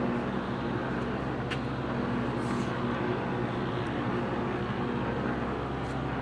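Monarch 10EE precision lathe running on its VFD-driven motor: a steady machine hum, with a couple of faint light clicks in the first few seconds.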